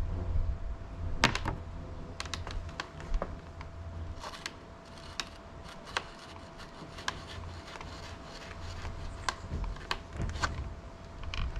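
Irregular light clicks and taps of a multi-tool and small metal bicycle parts being handled while the headset is taken apart, under a faint steady hum.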